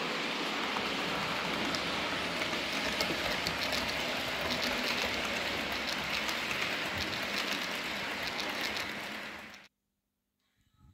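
Model railway freight train running along the track: a steady rolling hiss with many quick light clicks from wheels on the rails, which cuts off suddenly near the end.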